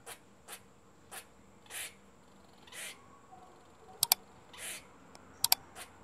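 Eurasian red squirrel at a feeder: faint, short rasping sounds coming about every half second to second, with two sharp double clicks about four and five and a half seconds in.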